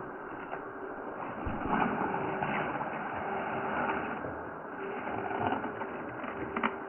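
Small electric motor and gearbox of a toy RC monster truck whirring in short on-off stretches as it drives over rock, with a sharp click near the end.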